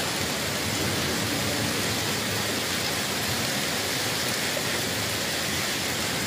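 Heavy hail and rain pelting down, a steady, dense hiss with no let-up.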